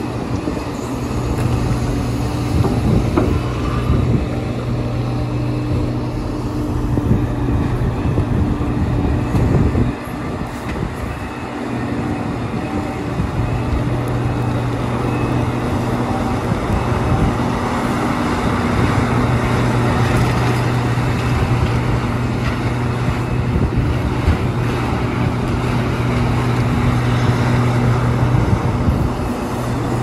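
Liebherr R 976 crawler excavator working, its big diesel engine running with a steady deep hum. The hum cuts out suddenly about ten seconds in and returns a few seconds later, and a rushing noise swells in the second half.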